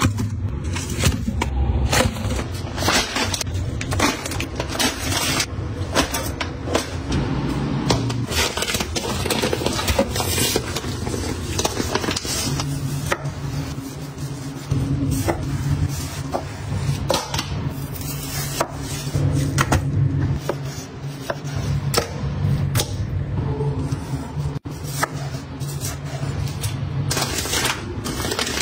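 Kitchen food-prep sounds: meat packaging in plastic being handled in a stainless-steel sink, and a knife cutting and scraping meat on a wooden chopping board, with many sharp knocks and clicks. Scissors snip open plastic packets near the end.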